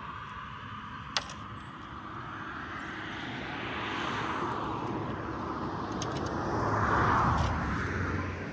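A motor vehicle passing, its noise growing steadily louder to a peak about seven seconds in, then easing off. There is a single sharp click about a second in.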